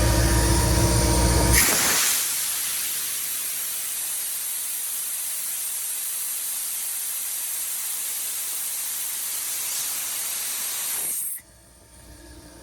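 Atlas Copco XAHS 186 mobile air compressor's Deutz diesel running, then stopping about two seconds in. A steady hiss of compressed air venting follows, the pressure blowing down after shutdown, and it cuts off abruptly near the end, leaving a faint hum.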